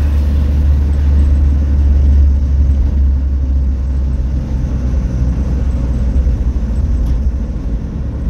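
Steady low rumble of a car driving along a road, heard from inside the moving car. The rumble eases slightly about three seconds in.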